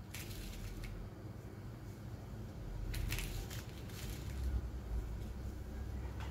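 Wet, squishy handling of raw fish as seasoning is rubbed into it by hand, in two short spells, at the start and around three seconds in, over a low steady rumble.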